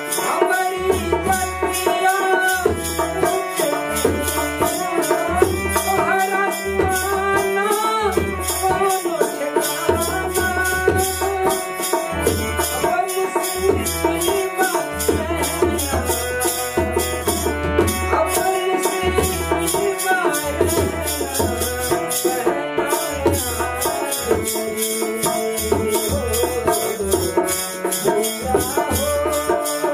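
Folk bhajan accompaniment: harmonium melody over a dholak drum beat, with kartal clappers clacking in a quick, steady rhythm.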